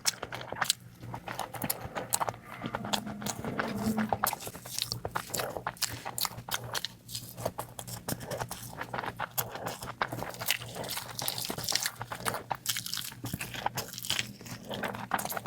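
Close-miked eating sounds: a person biting and chewing food, with many quick, irregular mouth clicks.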